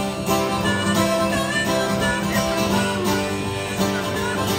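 Acoustic guitar strummed steadily in a country song, with a harmonica from a neck rack playing a melody with bent notes over the chords.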